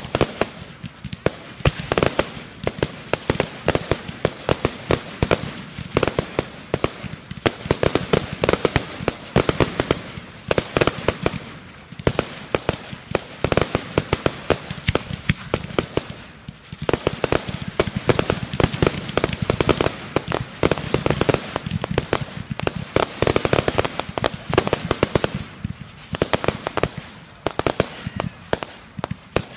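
Fireworks going off: a dense, continuous barrage of sharp bangs and crackling pops, many each second, easing briefly a few times before picking up again.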